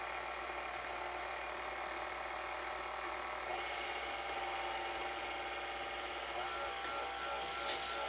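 Electric stand mixer running steadily on low speed, its beater stirring a thin bread batter to incorporate the added ingredients. Its tone changes slightly about six seconds in, and there is a brief click near the end.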